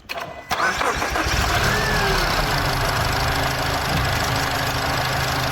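Mazda CX-30 engine starting about half a second in, then idling steadily with its accessory drive belt removed. It runs with no abnormal noise, which points the fault to a belt-driven part such as the water pump.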